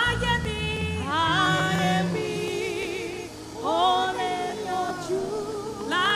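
Gospel worship music: sung praise with vibrato over keyboard and bass accompaniment.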